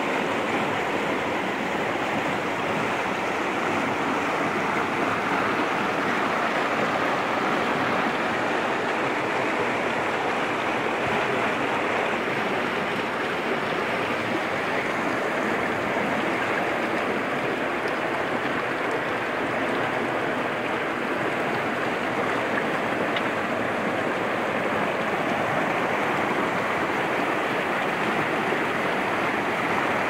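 Fast, rocky mountain stream rushing over boulders: a steady, even rush of water.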